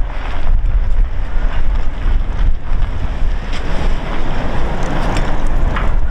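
Passenger train rolling past with a loud, steady rushing rumble, and wind buffeting the microphone.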